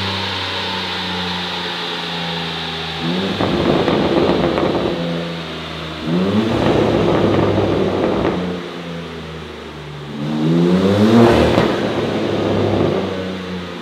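BMW M3 Competition G80's twin-turbo straight-six, fitted with an Eventuri intake and Aulitzky exhaust, idling and revved three times, the pitch climbing with each rev and falling back to idle. The third rev, about ten seconds in, is the loudest.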